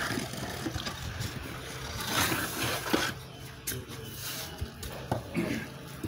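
Wooden straightedge scraping across a wet cement-mortar floor bed as it is screeded level, in uneven strokes with a few light knocks, over a low steady hum.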